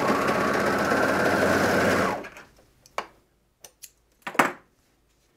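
Serger (overlock machine) running fast for about two seconds as it stitches off the end of a terry-cloth towel edge, then stopping. A few short clicks follow, the loudest about four and a half seconds in.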